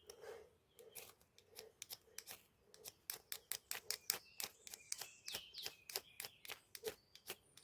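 Fire steel (ferro rod) being struck over and over with a striker: a run of short, sharp scrapes, sparse at first and coming quicker, about four a second, from about three seconds in. The sparks have not yet caught the tinder.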